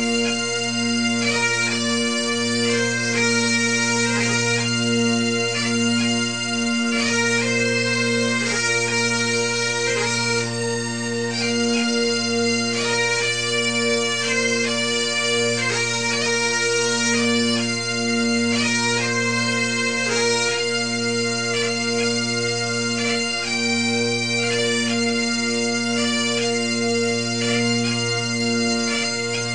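Bagpipe tune: steady drones sound under a chanter melody that moves from note to note.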